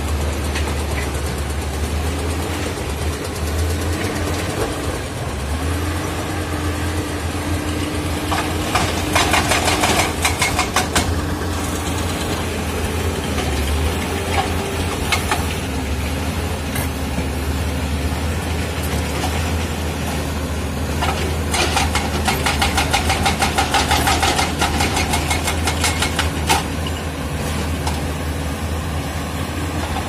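Komatsu D85E-SS crawler bulldozer's diesel engine running steadily under load as it pushes broken rock. Twice, about a third of the way in and again past two-thirds, a rapid clanking clatter of steel tracks and rock rises over the engine and is the loudest part.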